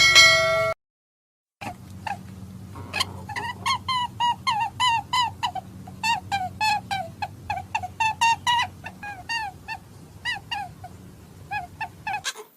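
An animal calling over and over in short, high, arched cries, about two or three a second, with a steady low hum behind. A brief steady tone comes first, then a short silence.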